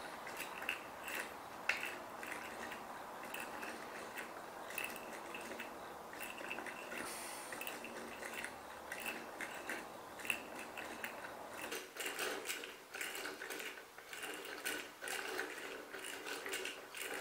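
Small hand-cranked wooden automaton mechanism clicking and clattering as it is worked: an irregular run of light clicks over a faint hiss, growing busier about twelve seconds in.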